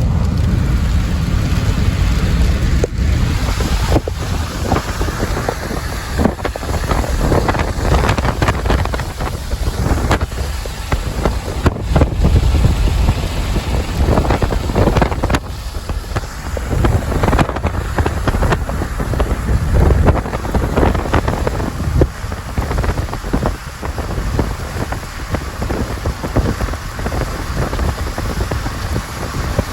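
Loud, gusty wind buffeting the microphone over the rumble of a moving vehicle, rising and falling in surges.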